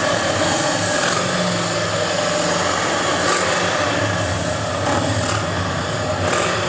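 Steady engine noise: the low rumble of Harley-Davidson motorcycles running near the stands, with a distant Formula One car's V8 engine heard underneath.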